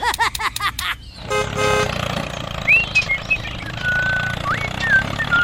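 A short horn toot about a second in, over a steady low rumble, followed by a few brief whistling glides.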